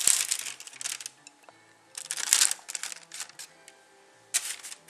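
Plastic bag of grated cheese crinkling and rustling in short bursts as a small child's hands grab cheese from it and sprinkle it, with faint background music underneath.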